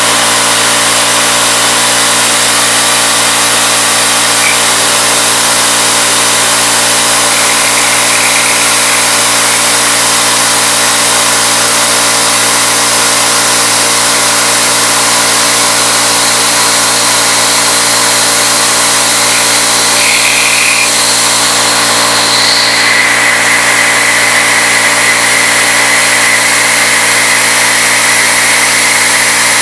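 CNC Bridgeport knee mill milling aluminum, its spindle turning a 3/8-inch end mill at 2200 RPM: a steady machine hum made of many held tones over a noise. A higher tone comes in about three-quarters of the way through and holds.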